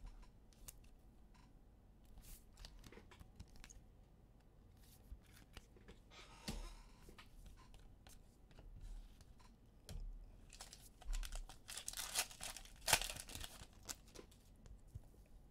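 Trading cards being handled and slid against one another, with small clicks, and a card pack's wrapper being torn and crinkled. The loudest stretch of tearing and crinkling comes about two-thirds of the way through.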